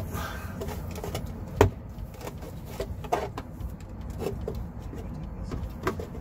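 Hands handling a thick power cord, wiring and a plastic housing: scattered light clicks and taps, with one sharper knock about a second and a half in, over a steady low hum.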